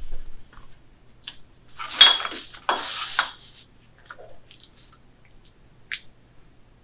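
Canvas fabric rustling as it is handled, in two longer rustles about two and three seconds in, followed by a few light clicks and taps as a side clamp is fitted to the edge of the quilting frame.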